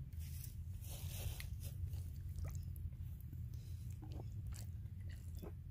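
Raw chicken pieces being put by hand into water in a clay pot: soft wet splashes and squelches with small scattered clicks, over a steady low rumble.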